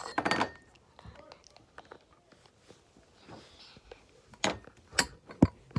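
Handling noise from a phone held at close range: a rustling burst at the start, then a few sharp knocks and taps near the end.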